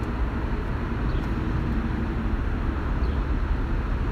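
Steady low rumble of the BMW Z4 sDrive35i's twin-turbo inline-six idling, heard from inside the cabin.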